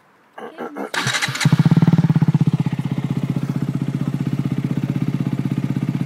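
KTM Duke 125's single-cylinder engine, fitted with an Akrapovic exhaust, cranked over by the starter for about a second, catching about one and a half seconds in, running loudest for a moment, then settling into a steady idle.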